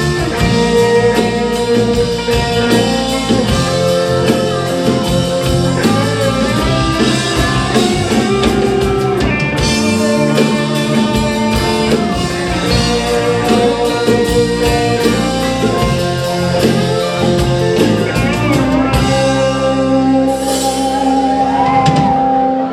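Live rock band playing, with guitar and drum kit. Near the end the drums drop out and the band holds sustained notes.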